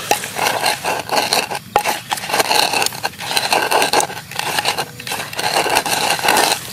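Wooden pestle pounding and grinding chillies in liquid in a clay mortar: repeated quick scraping strokes of wood against the clay.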